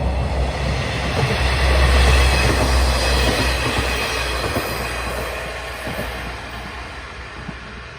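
A train passing on the track, its rumble and wheel noise peaking about two seconds in and then fading away.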